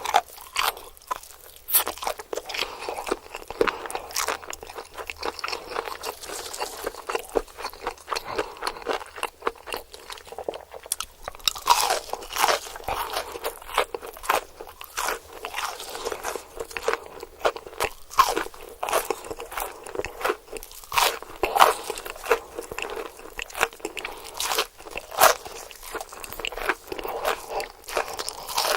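Close-up mouth sounds of a person biting into and chewing crispy fried chicken, with crunches of the breading coming thick and irregular. Louder crunches come every few seconds among constant crackly chewing.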